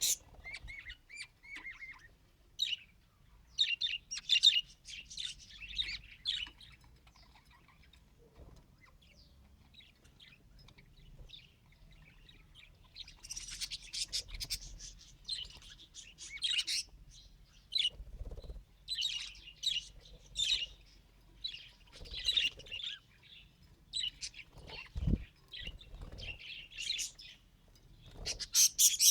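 Budgerigar chattering and warbling in clusters of rapid high chirps, with a quiet stretch of several seconds about a third of the way in.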